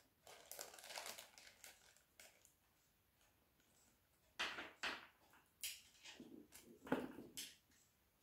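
Faint rustling and crinkling of paper packaging being handled, in short irregular bursts, the loudest in the second half.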